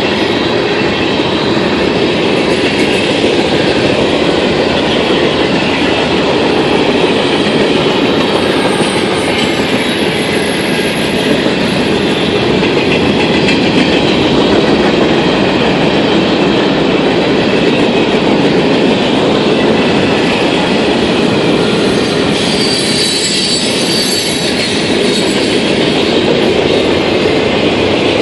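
Freight train cars, tank cars and then boxcars, rolling past at close range: a loud, steady rumble and rattle of steel wheels on the rails. A brief high wheel squeal rises over it about three-quarters of the way through.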